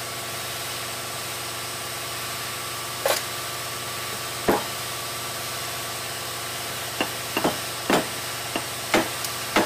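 Parts being handled at a Jaguar rear hub carrier make scattered knocks and clicks: one about three seconds in, another a second and a half later, then several close together near the end. A steady mechanical hum runs underneath.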